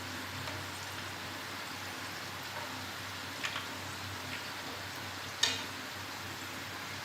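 Battered vegetable pakoras deep-frying in oil, a steady sizzle. A few light clicks of tongs or utensils against the pan sound over it, the loudest about five seconds in.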